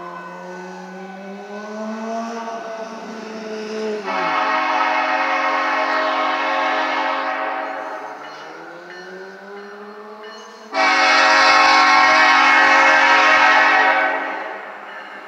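Approaching train's locomotive horn sounding two long blasts, the first about four seconds in and a louder one starting suddenly near the end. A lower tone slides up and down before and between the blasts.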